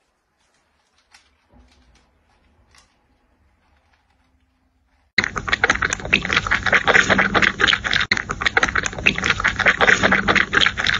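Kitten lapping milk from a metal bowl: a fast, continuous run of wet clicking laps, starting abruptly about five seconds in.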